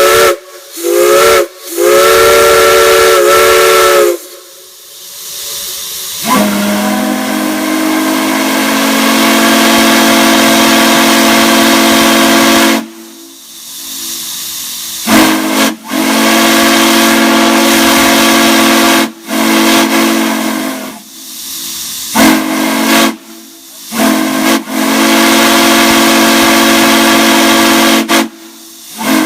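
Multi-chime steam whistles blown in blasts, each sounding a chord of several notes at once, with steam hissing between. A higher-pitched chime gives a few short toots and then a long blast. Then a deeper chime opens with a slight rise in pitch and is held in several long blasts with short breaks.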